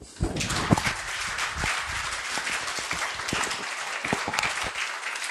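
Audience applauding, starting a moment in, with many individual hand claps standing out.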